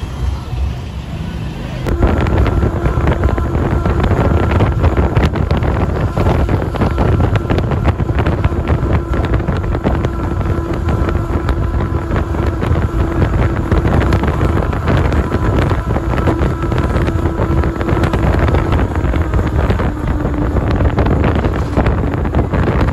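Motorcycle riding at steady highway speed: a constant engine hum under heavy wind rush buffeting the microphone. It grows louder about two seconds in.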